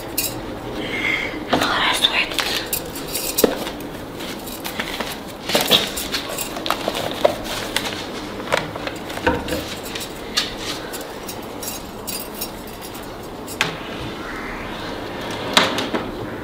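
Metal bangles clinking and jingling, with clothes rustling and small knocks as someone rummages in a wooden wardrobe. A louder knock near the end as the wardrobe door is pushed shut.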